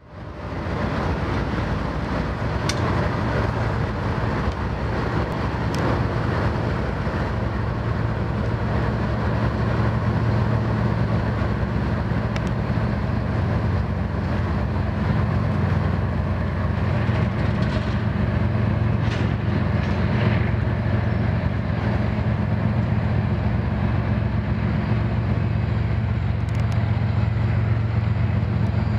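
Union Pacific diesel-electric locomotives hauling a double-stack intermodal freight train, their engines droning steadily over the rumble of the train rolling along the rails. The sound fades in over the first second, and a few brief high metallic ticks come through.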